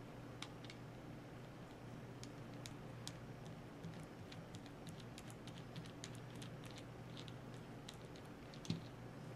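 Faint, irregular small clicks of a small screwdriver bit turning a screw out of a Spyderco Endura 4's plastic (FRN) handle, with one sharper click near the end.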